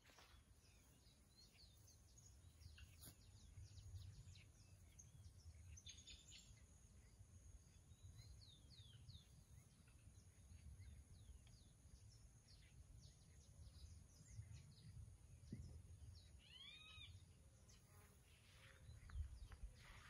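Faint, distant birdsong: scattered short chirps from several birds, with one clearer arching call about three-quarters of the way through, over a faint low rumble.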